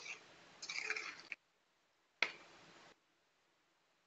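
Faint squishing and scraping of a spoon stirring thin coconut curry in an aluminium pan, with a short knock about two seconds in.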